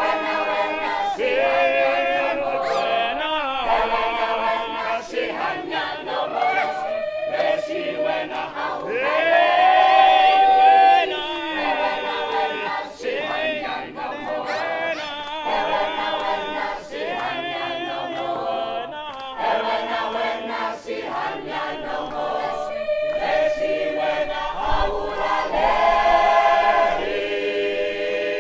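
A large group of men and women singing together unaccompanied, led by a singer out in front. A single voice rises and slides above the group about ten seconds in.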